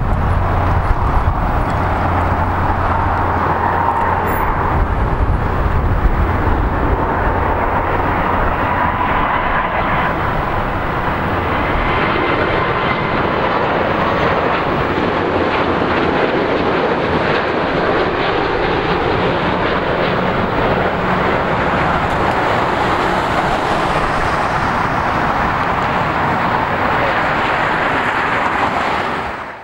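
Twin-engine Airbus A330 airliner passing low on final approach with its landing gear down: a loud, steady jet rumble and rush with a faint whine that slides slightly in pitch.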